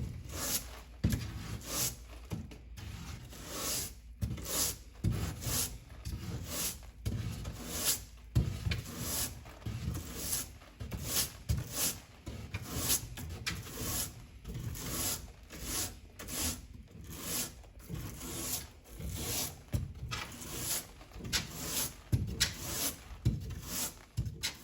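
Repeated scrubbing or rubbing strokes, a little under two a second, over a steady low hum, as from dirt being scrubbed off an air-conditioner part.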